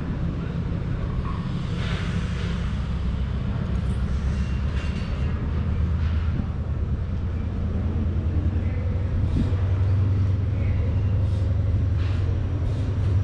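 San Martín line diesel-hauled commuter train running, a steady low rumble of the train on the rails that grows a little louder about two thirds of the way through.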